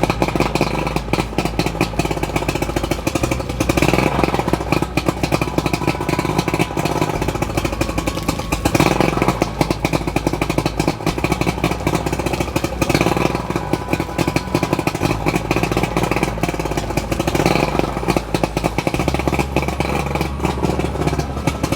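Outboard boat motor running on flushing muffs, a loud, fast, steady engine beat that swells louder every few seconds.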